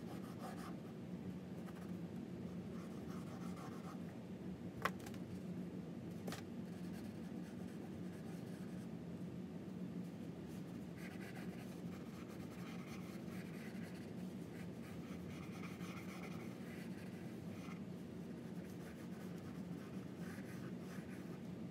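Pencil sketching on paper: light scratchy strokes, with two sharp taps about five and six seconds in. A low steady hum runs underneath.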